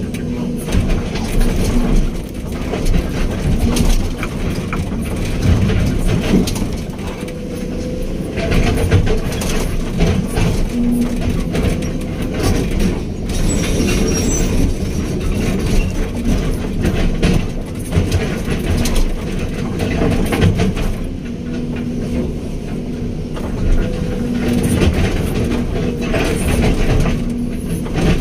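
Excavator's diesel engine running steadily, with irregular rattling and knocking from the working machine.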